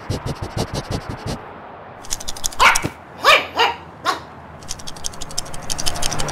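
A small dog barking three or four short times a little past the middle, between runs of rapid light clicks at the start and near the end: the dog's quick scurrying steps.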